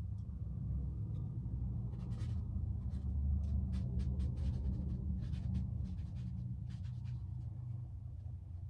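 Paintbrush bristles stroking and dabbing acrylic paint onto a canvas: a run of short strokes, mostly in the middle of the stretch, over a steady low hum.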